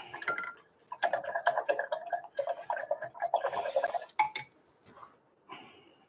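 Paintbrush being washed in a rinse jar: the brush rattling and clinking rapidly against the jar's sides for about three seconds, then a couple of sharper taps as it is knocked clean.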